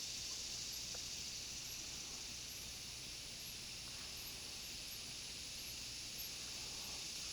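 Steady high-pitched drone of insects, with faint short high chirps repeating about once a second.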